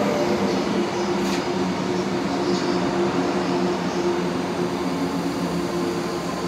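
The Royal Express electric train, a converted Izukyu 2100 series set, moving slowly along the platform: a steady hum and rumble from its motors and wheels that eases slightly, with a brief click about a second in.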